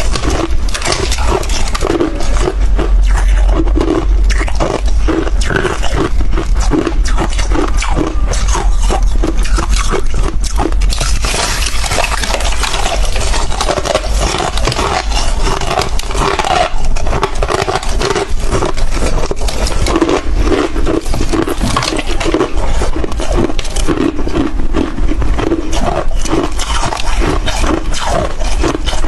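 Close-miked crunching and chewing of hard chunks of freezer frost: a dense, irregular run of cracks and crunches over a steady deep rumble.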